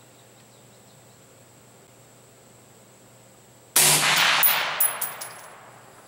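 A single rifle shot from a suppressed AR-15, about two-thirds of the way in. The report dies away over about two seconds, with a few sharper cracks in its tail.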